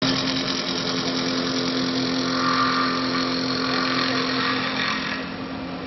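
Automatic CNC wood-turning lathe running, its motor giving a steady hum while the cutter shaves the spinning wood blank. The cutting noise drops away about five seconds in, leaving the motor hum.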